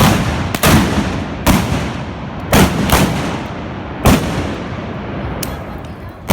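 Trabucs (blunderbusses) firing blank black-powder charges: about six loud shots at uneven intervals, two of them close together near the middle. Each shot is followed by a long echoing tail.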